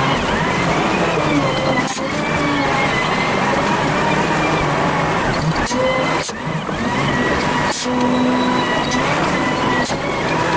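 Volvo BM 4300 wheel loader's diesel engine and hydraulics working while it levels dirt, sped up fivefold, so the engine note runs high and swings up and down quickly as the bucket is worked. A few sharp knocks come through, about a second or two apart at times.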